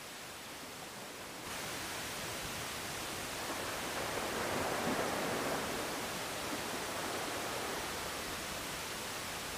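Waves washing against a concrete tetrapod breakwater: a steady rush of surf that gets louder about a second and a half in and swells about four to five seconds in.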